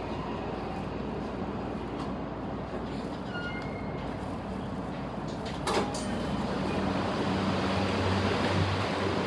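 Inside a Toei 5500-series commuter train coming into a station: steady running noise, a sharp clack a little before six seconds in, then a steady low hum.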